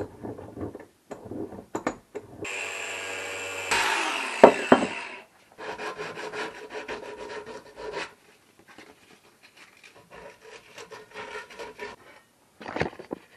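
A sheet of 150-grit sandpaper crinkling and rubbing as it is folded and handled. Before that, a steady buzzing hum runs for over a second, followed by two sharp knocks, the loudest sounds here, about four and a half seconds in.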